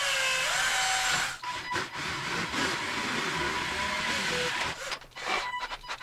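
Cordless drill boring through a plastic back panel, first with a small pilot bit and then with a step drill bit, its motor whining steadily. A few sharp clicks come near the end.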